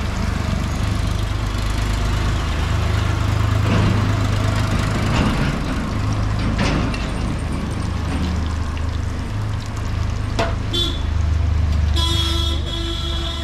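Street traffic: a steady low engine rumble with a vehicle horn honking near the end, under the sizzle of samosas deep-frying in a kadai of hot oil.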